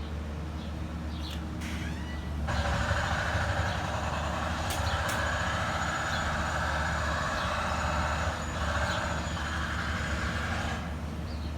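Steady mechanical noise like a truck or other vehicle running close by, starting abruptly about two and a half seconds in and stopping near the end, over a low steady hum. A few faint bird chirps come near the start.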